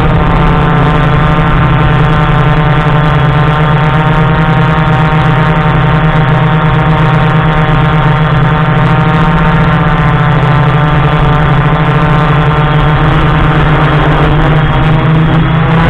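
Multirotor FPV drone's motors and propellers buzzing loudly at a nearly steady pitch, shifting slightly near the end.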